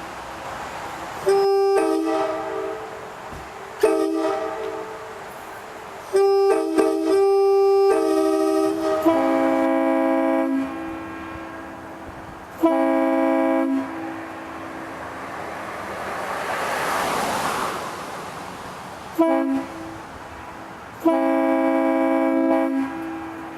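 Locomotive air horns, a Leslie SuperTyfon S3L three-chime and a Nathan AirChime K5LA five-chime, sounded in a series of blasts: several short toots and a few longer held chords, each echoing off the surroundings as it dies away. A rushing noise swells and fades between blasts near the middle.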